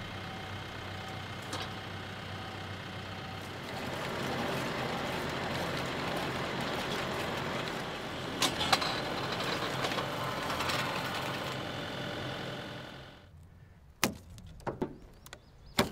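TYM T654 tractor's diesel engine running while it drives a three-point post hole digger's auger into the ground. It gets louder about four seconds in, with a few sharp clicks near the eighth second, and fades out about thirteen seconds in. A few short knocks follow near the end.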